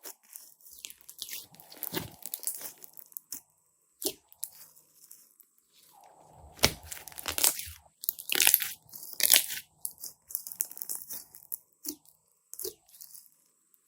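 Slime being handled: irregular crackling and crunching clicks with short squelchy bursts, loudest for a few seconds past the middle.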